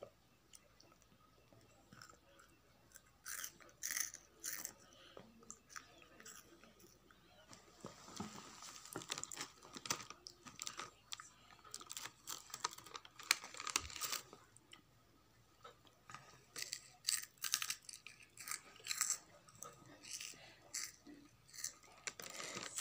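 A toddler chewing crunchy Kurkure corn puff snacks, giving irregular, faint crunches and crackles.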